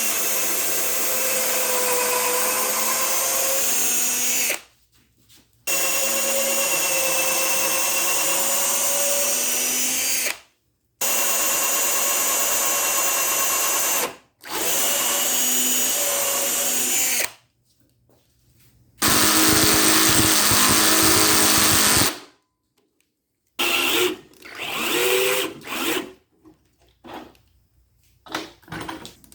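Power drill running in five steady runs of three to five seconds each, driving screws into the corners of a 2x4 frame. Near the end it gives a string of short trigger pulls whose pitch rises and falls.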